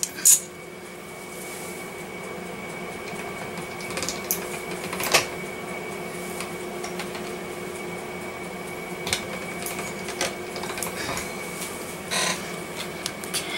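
Pasta machine rolling out a sheet of polymer clay, over a steady hum, with a few sharp knocks of clay and tools on the tabletop.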